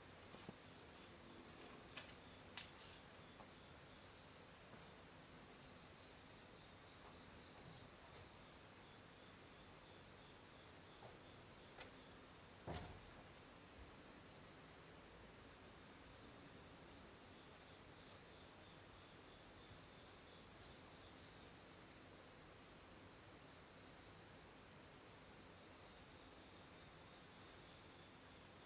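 Faint chirping of night insects: a steady high trill with a faster pulsing chirp just beneath it. A sharper chirp comes about twice a second for the first six seconds, and there is a single soft click near the middle.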